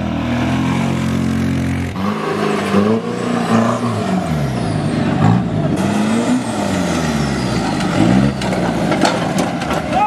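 A 4x4 off-road vehicle's engine running steadily, then revving up and down repeatedly from about two seconds in, with a few sharp clicks near the end.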